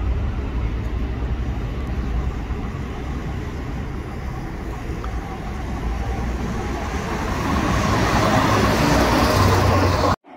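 A three-car diesel multiple unit running through the station without stopping, the rumble of its engine and wheels on the rails growing louder as it approaches and then cutting off suddenly near the end.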